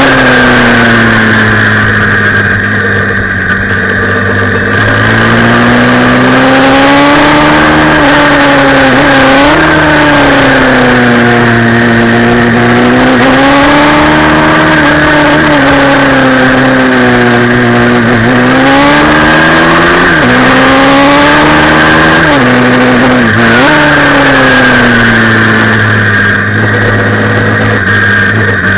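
Pit bike engine heard from onboard at racing speed, its revs rising and falling through the corners, with a few sharp drops in pitch as the throttle is shut or a gear is changed, over a steady hiss.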